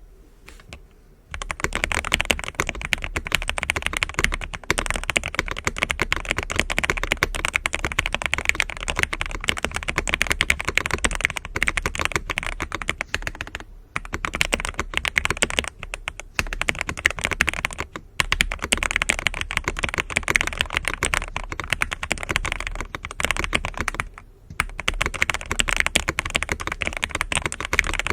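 Fast continuous typing on a Zoom65 v2 mechanical keyboard with factory-lubed Aqua King linear switches in an aluminium plate, foam-modded and fitted with GMK-style keycaps. Keystrokes start about a second in and run in a dense stream, with a few short pauses.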